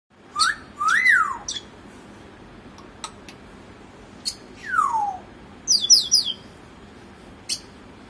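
African grey parrot whistling and clicking: a short rising-then-falling whistle about a second in, a long falling whistle about halfway, then a quick run of four short falling chirps, with sharp clicks in between.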